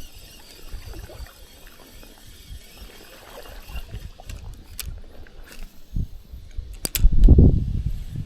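Wind buffeting the microphone in uneven gusts, strongest about seven seconds in, with a few sharp clicks.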